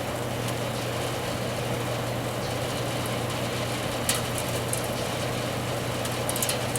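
A 36-year-old Carrier air-conditioning unit running with a steady hum. There is a sharp click about four seconds in and a few light crackles near the end.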